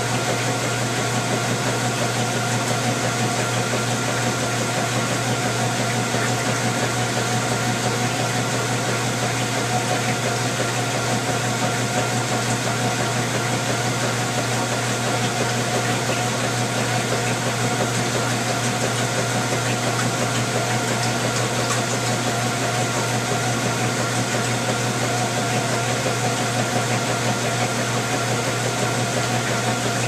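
Whirlpool top-loading washing machine running steadily: an even motor hum under a wash of noise, with no change in pace.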